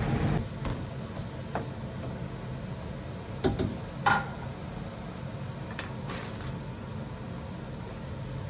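Kitchen handling sounds: a few scattered sharp knocks and clicks of dishes or utensils over a steady low hum from a running kitchen appliance.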